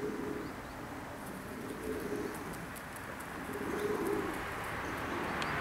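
Maltese pigeons cooing: two low coos, one about two seconds in and another near four seconds.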